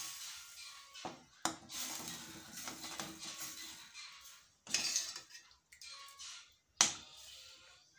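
Metal ladle stirring thin curry in a stainless steel pan, scraping the pan, with a few sharp clinks of the ladle against the pan: one about a second and a half in, one near five seconds, one near seven.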